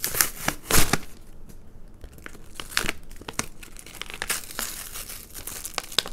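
Cardboard backing card and plastic wrapping of a sticky-hand toy being torn open and crinkled by hand: irregular rustles and crackles, loudest in the first second.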